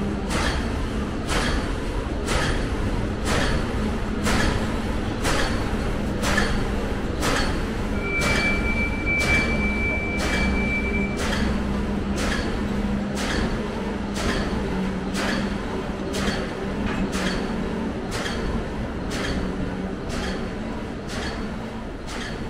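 A train running on rails, its wheels clacking over the rail joints at a regular beat of a little more than once a second, spacing out slightly near the end, over a steady hum. A high steady beep sounds for about three seconds in the middle.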